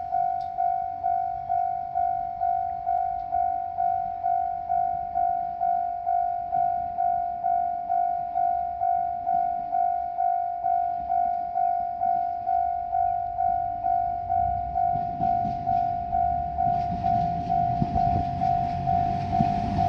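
Japanese electronic level-crossing warning bell ringing a steady, evenly repeated single-pitched clang, a little under two strikes a second. Near the end a diesel railcar's low rumble and wheel clicks build as the train approaches the crossing.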